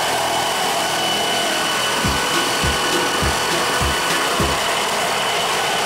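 Helicopter sound: a steady rushing hiss with a thin high whine, and low rotor thumps about every 0.6 seconds from about two seconds in.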